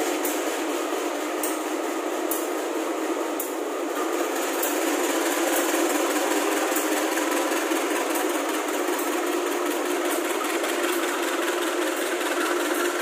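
A train running on the rails: a steady rushing noise with a few faint clicks here and there.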